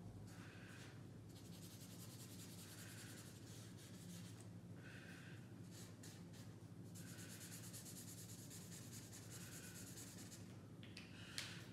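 Faint scratching of a black pen on paper, in a series of short strokes with pauses between, as spots are drawn onto a folded paper origami dog.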